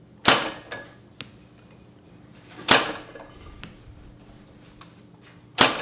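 A bow shot three times, about two and a half seconds apart, each release a sharp snap of the string. Each is followed roughly a second later by the faint smack of the arrow striking the target downrange.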